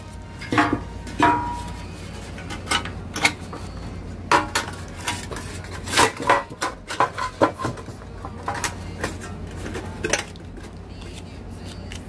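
Thin sheet-metal cable tray being handled while masking tape is pulled from the roll and pressed around its joint: irregular light metallic clicks and rattles, thinning out near the end.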